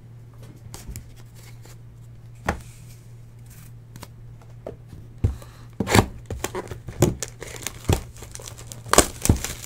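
Hands opening a Diamond Kings trading-card hobby box: plastic shrink-wrap crinkling and tearing while the cardboard box is handled, a scatter of sharp crackles that starts about halfway through, after a lone click near the start.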